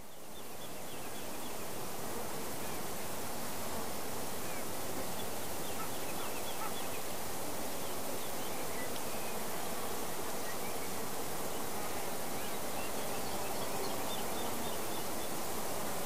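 Summer forest ambience: a dense, steady wash of insect noise with scattered faint bird chirps, swelling up over the first second or two.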